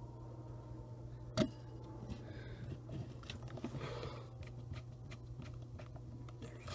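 Small clicks and scrapes of a tiny Phillips screwdriver driving screws into a camcorder's plastic case, with one sharper click about a second and a half in, over a faint steady low hum.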